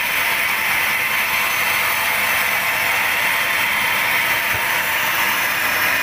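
Large band sawmill ripping lengthwise through a curved teak log: the blade's steady, even sawing hiss over the machine running, with no break.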